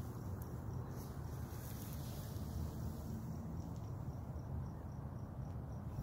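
Crickets chirping in a steady, even rhythm of about three to four high chirps a second, clearest in the second half, over a steady low rumble.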